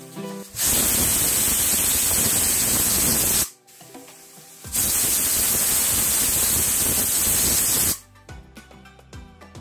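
Prestige Deluxe pressure cooker whistling twice: steam hissing out from under the weight valve in two steady blasts of about three seconds each, a second apart. The whistles are the sign that the cooker has reached full pressure, and two of them mark the end of cooking.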